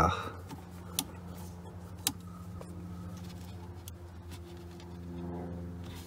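Two light, sharp clicks about a second apart, from tools and small screws being handled while a steering-column switch is unscrewed, over a steady low hum.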